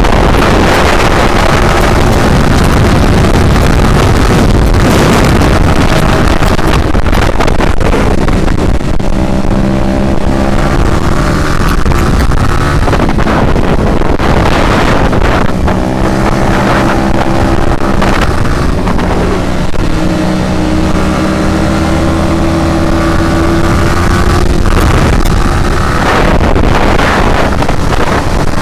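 Motorcycle engine under way with heavy wind rush over the microphone. The engine note climbs and falls several times as the rider accelerates, shifts and backs off.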